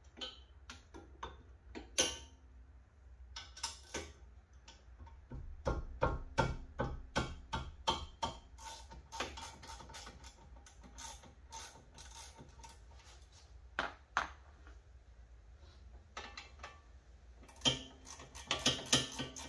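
Hand ratchet clicking in quick runs as the 18 mm brake caliper bolts are backed out, mixed with scattered metal clinks and knocks of tools and parts.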